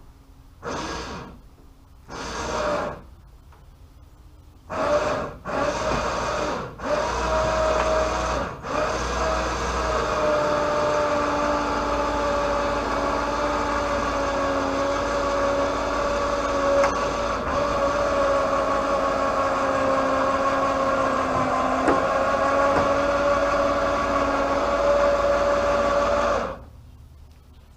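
Electric hoist motor jogged in a few short bursts, then running continuously with a steady hum for about seventeen seconds before stopping suddenly.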